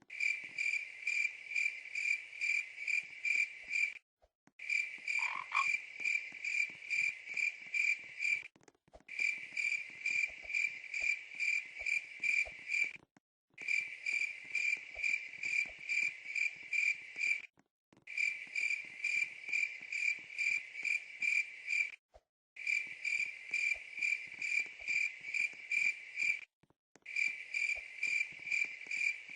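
Cricket chirping in a steady, even pulse, about three chirps a second. The recording loops, with a sudden dead-silent break every four seconds or so.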